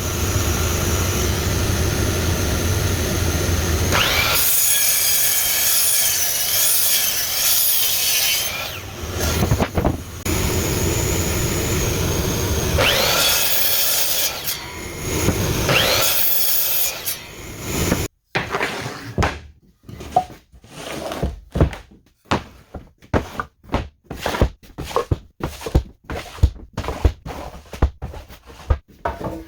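Woodworking power tools milling lumber: a machine runs and cuts wood for about the first two-thirds, its pitch rising twice along the way. Then come a series of sharp, irregular wooden knocks and clatters as boards are handled.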